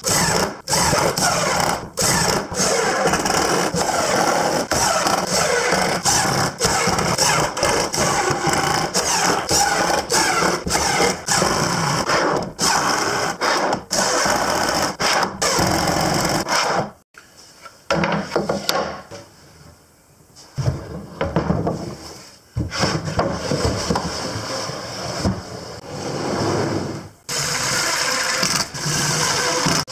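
Makita 18V cordless impact driver hammering screws through metal drawer slides into the wooden cabinet sides, in long runs with short breaks between screws and a pause of a few seconds past the middle.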